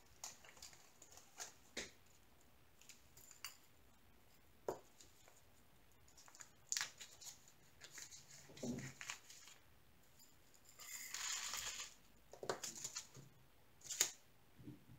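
Faint handling sounds of small plastic zip bags of diamond painting drills: scattered crinkles and clicks as they are picked up and set down, with a longer rustle about eleven seconds in and a sharper click near the end.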